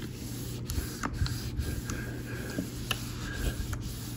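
A Black+Decker clothes iron pressed and slid over heat-transfer paper: soft rubbing of the iron's soleplate on the paper, with a few faint ticks over a low steady hum.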